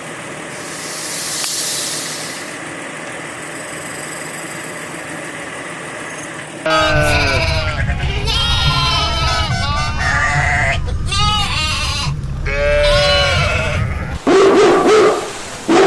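Goats bleating repeatedly over a low steady rumble, with a dog barking twice near the end.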